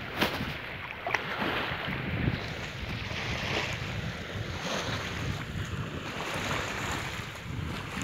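Wind buffeting the microphone over small waves lapping in shallow sea water, with a couple of short clicks about a second in.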